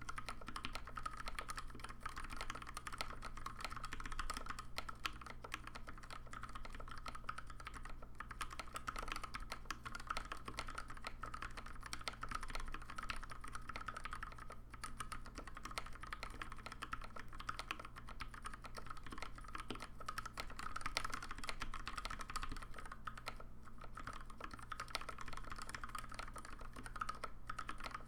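Continuous fast typing on a custom Alice-layout mechanical keyboard with lubed Gateron Pink switches on 72g springs and PBT keycaps: a dense stream of keystroke clacks with a few brief pauses.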